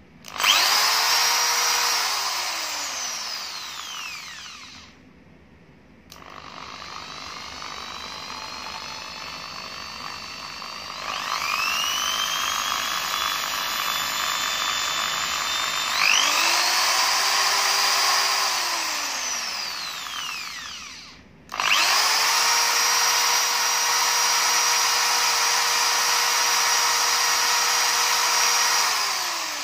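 Maktec MT80B corded hammer drill running with no load. Its motor whines up to full speed and coasts down three times. On the middle run it turns at lower part-trigger speeds and steps up twice before reaching full speed.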